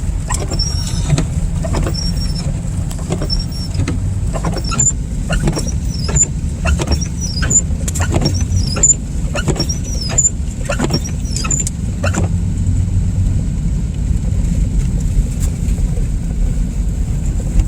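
Car driving through slush: a steady low road and engine rumble inside the cabin, with windshield wipers going hard. The wipers give a sharp knock and a small high squeak on each stroke, roughly every two-thirds of a second, until about twelve seconds in.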